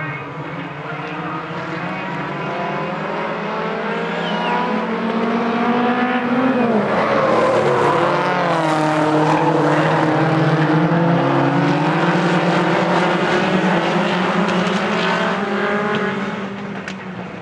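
Several small four-cylinder modified stock cars with Volkswagen Golf bodies racing on a dirt oval, their engines revving hard together. About six and a half seconds in, one engine note drops as a car lifts for the bend and climbs again as it accelerates out. The engines are loudest in the middle as the pack passes close and fade a little near the end.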